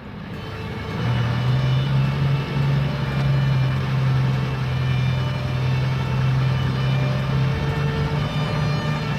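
Heavy engine running steadily with a low, even hum that settles in about a second in: a bulldozer's engine sound effect.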